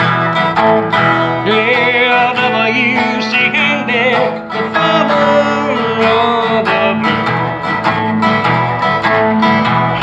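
Instrumental break of a blues song: guitar with a backing band, and a wavering high lead line about two to four seconds in.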